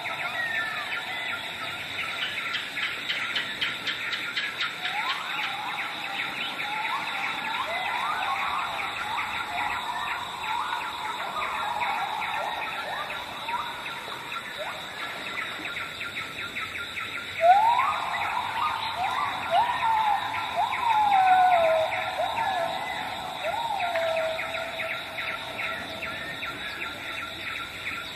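Wild bush ambience: a steady high insect trill with dense rapid chirping, and a bird calling in a series of sliding whistled notes that rise sharply and then fall, loudest about two-thirds of the way in.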